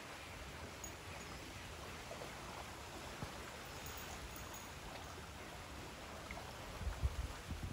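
Steady rushing of a fast-flowing river in flood, its water high and brown after heavy rain. A few low bumps come near the end.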